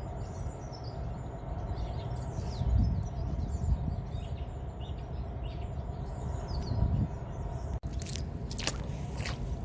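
Outdoor ambience: wind rumbling on the microphone, with small birds chirping. Near the end there are a few sharp clicks or knocks.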